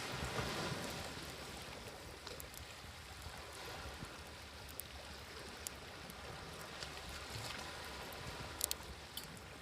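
Waves washing in, one swell building about half a second in and ebbing away, under a campfire crackling with scattered sharp pops, the loudest pop near the end.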